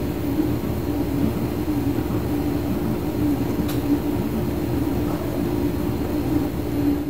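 A steady mechanical drone with a constant low hum and no change in pitch or level.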